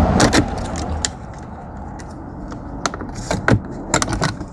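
Scattered sharp plastic clicks and knocks as a car door's window-switch panel is handled and pulled free of its clips after being pried up. A few come in quick succession about three and four seconds in.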